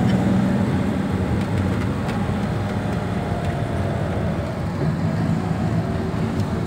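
Steady engine rumble and road noise of a moving vehicle, heard from on board, with a faint steady whine above it.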